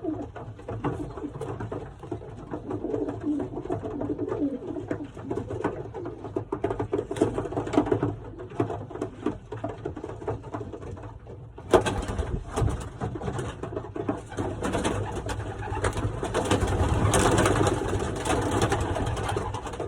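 Racing pigeons cooing in a loft, with short clicks and rustles over them. About twelve seconds in, a louder rustling noise starts suddenly and keeps on.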